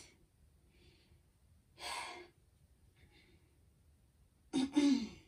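A woman breathing hard after exercise: a sharp breathy exhale about two seconds in, a couple of faint breaths, and a voiced sigh falling in pitch near the end.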